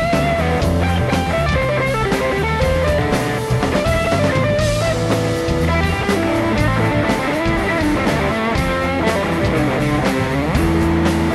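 Live rock band playing an instrumental passage: an electric guitar lead line over drums and bass guitar.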